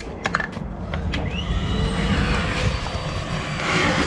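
Vacuum cleaner motor starting with a rising whine about a second in, then running steadily as its hose sucks dust out of a drilled anchor hole in concrete. A few sharp knocks come just before it starts.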